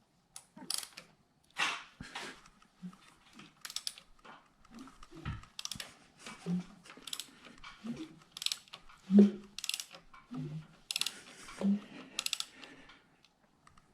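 Socket ratchet clicking in short irregular bursts, with dull knocks in between, as the small-block V8's crankshaft is turned by hand to check that the new timing gear marks line up.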